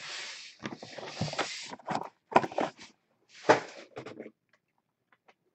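Trading cards and small cardboard card boxes being handled on a desk: rustling and sliding scrapes, with two sharper knocks.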